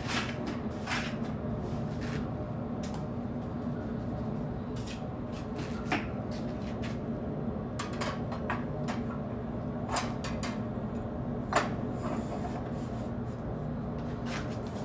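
Mortar and glass block work: a trowel scraping mortar over glass blocks, and blocks being handled and set into the frame with scattered clicks and knocks. The sharpest knock comes about two-thirds of the way through, over a steady low hum.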